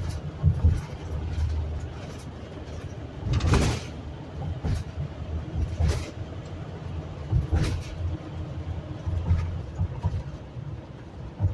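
Road noise inside a moving RV's cab: a steady low rumble, with a few sharp knocks or rattles about a third, half and two thirds of the way through.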